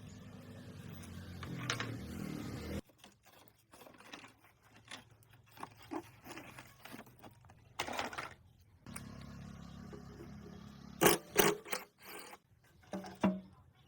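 Scraping and clicking handling noises, with a low steady hum that stops abruptly about three seconds in and comes back for a few seconds later, and a few sharp knocks near the end.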